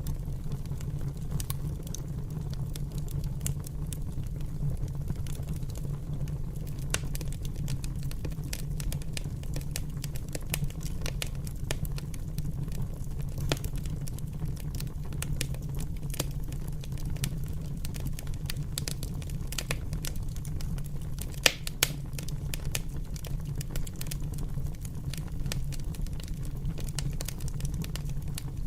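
A fire crackling, with many small snaps over a steady low rumble and one louder pop about two-thirds of the way through.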